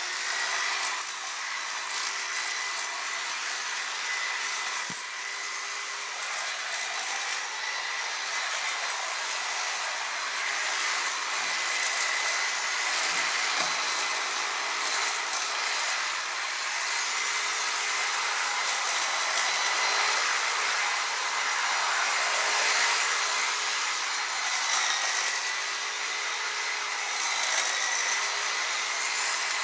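Electric hedge clippers running steadily, their motor and blades giving a continuous buzz with a steady high whine, and short clicks here and there as they trim through a hedge.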